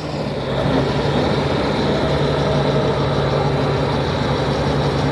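Komatsu D80A bulldozer's diesel engine idling with a steady, even low hum.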